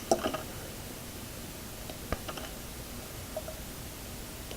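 Faint handling noises of solid hookup wire and a circuit board being worked by hand: a few light clicks and rustles, just after the start and again around two seconds in.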